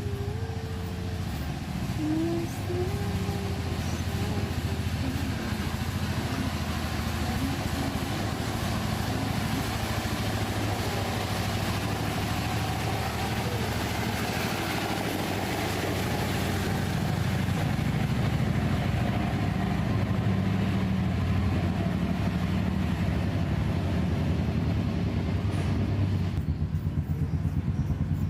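Steady low motor hum with a hiss above it. Near the end the hiss drops away and a fast, even pulsing comes in.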